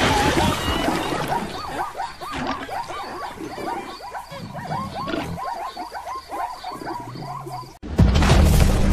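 Cartoon sound effects of a herd of bloated, ball-shaped zebras calling: many short yelping calls that rise and fall in pitch and overlap, with a noisy rush at the start. Near the end it cuts suddenly to loud music with a deep boom.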